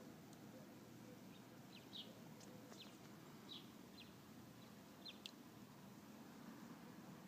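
Faint bird chirps: about a dozen short, high calls spaced irregularly over a quiet, steady background hiss.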